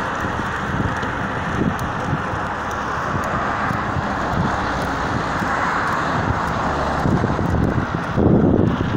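Wind rushing over the microphone of a moving bicycle, with steady road noise underneath; heavier low buffeting about eight seconds in.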